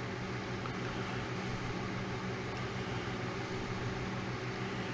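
Steady low mechanical hum with a faint hiss, unchanging throughout: background noise of a running machine in the room.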